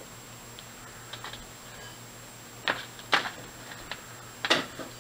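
Scattered small clicks and taps of wire and a lighter being handled on a wooden workbench, loudest about three and four and a half seconds in.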